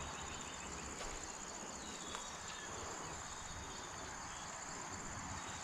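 Steady high-pitched insect chorus with a faint click about two seconds in.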